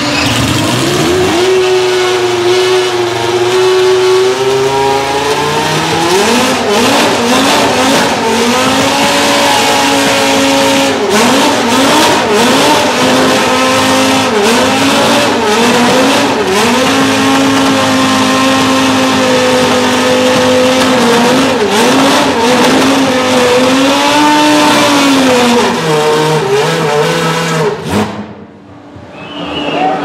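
McLaren MP4/5's 3.5-litre Honda V10 Formula 1 engine being warmed up. It runs at a steady fast idle, with the throttle blipped up and down again and again, then is switched off, the sound cutting out suddenly near the end.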